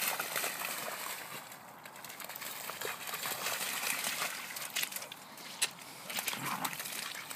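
Dogs splashing and running through a shallow muddy puddle: irregular splashes and the slap of paws on wet mud.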